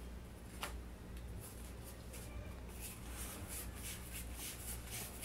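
Light handling noises: a sharp click a little over half a second in, then quick rustling and scratching, several strokes a second, as hands work the bicycle tire and gear.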